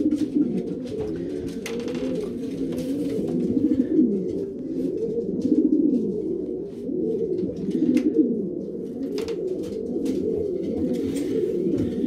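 Many racing pigeons cooing at once: low, overlapping courtship coos from paired birds in their nest boxes, with a few faint clicks among them.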